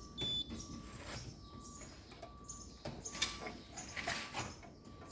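Short, steady high beep from a multimeter's continuity tester near the start as the probes touch the washer-dryer heater element's terminals: the element has continuity and is intact. Then faint light clicks and high chirps.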